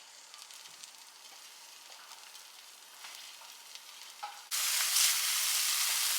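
Food sizzling as it fries in oil in a pot, faint at first with a few small ticks, then suddenly much louder about four and a half seconds in.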